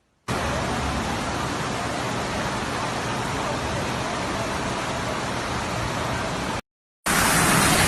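Steady hiss of heavy rain. It cuts to silence for a moment near the end and comes back a little louder.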